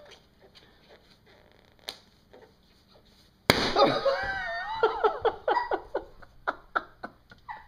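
A long green latex balloon that a kitten is biting bursts with a sudden loud pop about three and a half seconds in. A person's startled cry follows at once, then laughter.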